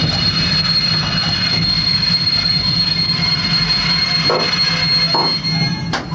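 Train wheels squealing: a steady, high-pitched squeal held over the low rumble of a slow-moving passenger train, heard from the rear car. A few dull knocks sound near the end, and the squeal cuts off with a sharp click.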